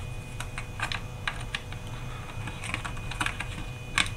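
Scattered light clicks and taps at uneven spacing from hands handling a plastic soundbar and its power cord, with one louder tap near the end.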